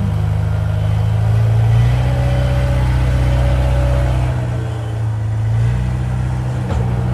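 Tractor engine running with a steady low chug. It is the sound given to a toy tractor pulling a loaded trolley through mud. The note shifts a little about four seconds in.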